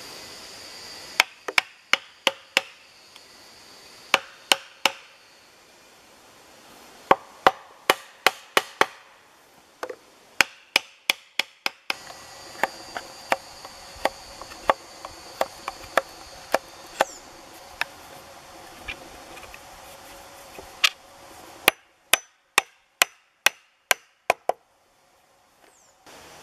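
Sharp wooden knocks in quick runs of three to eight, with pauses between: a wooden stake being driven into a hole in a log. A steady insect buzz runs behind.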